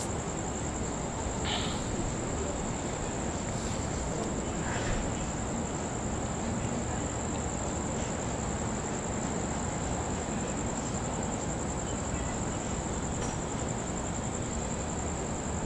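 Crickets chirping in a steady, high, fast-pulsing trill, over a steady low background noise.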